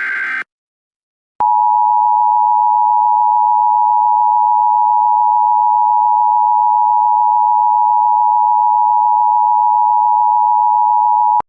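A short buzzy electronic data burst ends just at the start. After about a second of silence, the Emergency Alert System attention tone sounds, loud and steady, for about ten seconds and cuts off abruptly near the end. It is the alert signal that announces an emergency message is about to be read.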